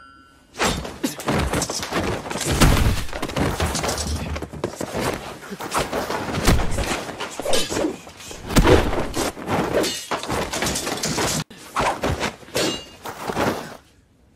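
Dubbed-in sword-fight sound effects: a dense run of crashing hits, blade impacts and swishes, one after another. There is a sudden break about eleven and a half seconds in, and the sound dies away near the end.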